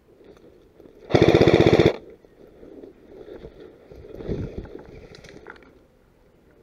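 Airsoft electric gun (AEG) firing one short full-auto burst of just under a second, a rapid even rattle of shots about a second in. A quieter, lower noise follows a few seconds later.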